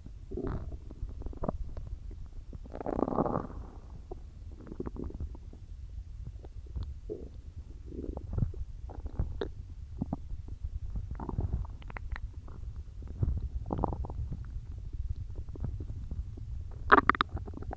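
A person's stomach gurgling, heard close up: irregular short gurgles and squelches, with a longer one about three seconds in and a sharper, louder one near the end. It is the sound of soda and swallowed air moving in a stomach that was emptied beforehand.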